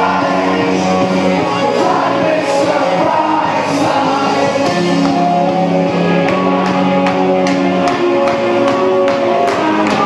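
Loud disco music with sung vocals played over a mobile DJ's PA system, with sharp drum hits coming through more strongly in the second half.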